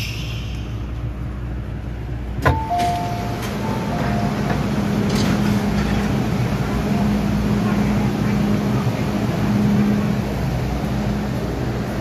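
Running noise inside an MTR M-Train carriage: a steady rumble with a low hum. About two and a half seconds in there is a sharp click, then a short two-note chime, higher note first.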